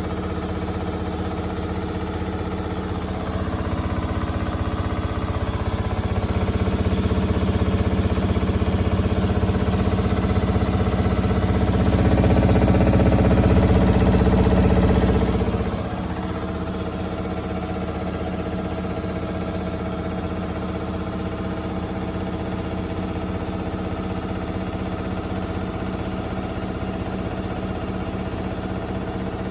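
Indesit IWD61450 washing machine in its final spin: the motor and drum run with a steady hum and whine, getting louder in steps as the spin builds, then dropping off sharply a little past halfway and running on steadily at a lower level.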